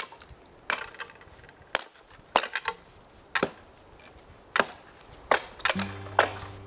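Hultafors axe chopping into dead spruce wood: about nine sharp chopping strikes at an uneven pace, less than a second apart. Background music comes in near the end.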